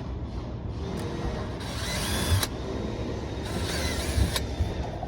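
Power drill with a 5/32 bit running in two short bursts, each about a second long, drilling through the holes in a cabinet door.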